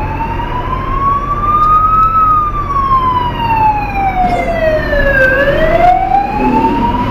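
Fire truck siren on a slow wail: one long rise, a long fall, then rising again near the end. The car's low engine and road rumble runs underneath.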